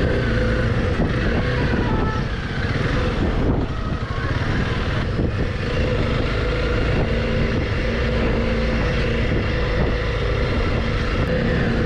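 Honda CRF300L Rally's single-cylinder engine running steadily while riding, with the sound of the ride around it.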